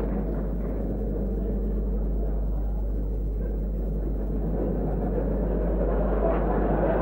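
Crowd noise of an audience in a hall, a steady murmur without clear words, over a constant low mains hum from an old recording.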